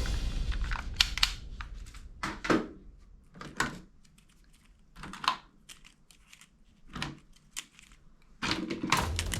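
Scattered sharp clicks and knocks with some crinkling, a dozen or so separate handling sounds spaced irregularly. Music comes back in near the end.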